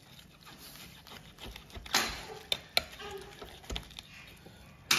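Large kitchen knife carving a roasted bone-in pork neck on a wooden cutting board: the blade knocks and scrapes against the board. There are several sharp clicks, the loudest about two seconds in and just before the end.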